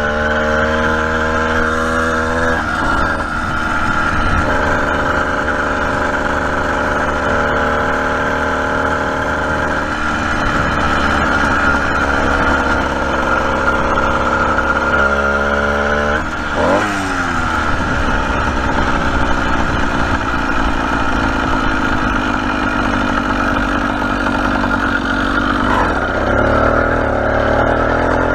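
Small engine of a motorized bicycle running under way, its pitch stepping up and down as the throttle changes, with a brief drop and rise in revs about two-thirds of the way through.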